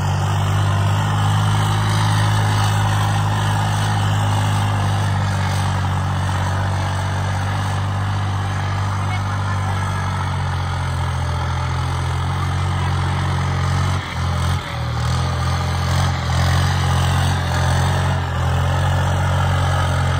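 New Holland 3600-2 tractor's turbocharged diesel engine running steadily under load while pulling a disc harrow through dry soil. The level drops briefly twice about two-thirds of the way through.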